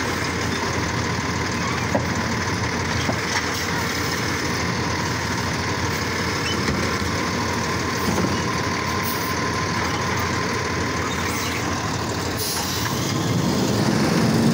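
Automated side-loader garbage truck's diesel engine running while its hydraulic arm lowers an emptied wheeled cart back to the ground, with a couple of short knocks. Near the end the engine grows louder as the truck pulls away.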